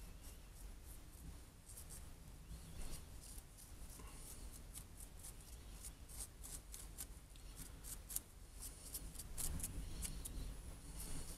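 Small wooden stick scraping and dabbing resin glue onto a broken ammonite shell and its rock negative: faint, quick scratching strokes against the stone, coming thicker and faster in the second half.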